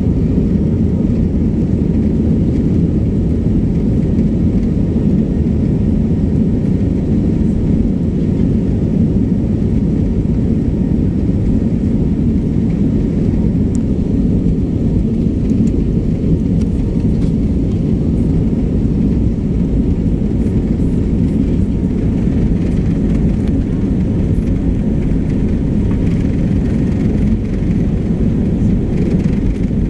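Cabin noise of an Airbus A320-family airliner rolling along the runway after landing: a steady, loud low rumble of wheels and engines heard from inside the cabin.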